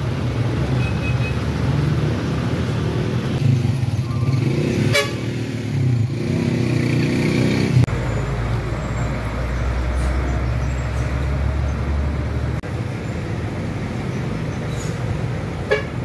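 Road traffic passing close by: car, truck and motorcycle engines running, with a deeper rumble of a heavy vehicle for a few seconds in the middle and a brief horn toot.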